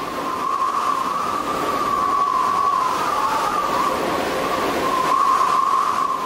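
Howling wind sound effect for a tornado: a rushing noise under a wavering whistle, growing over the first second or two and easing off near the end.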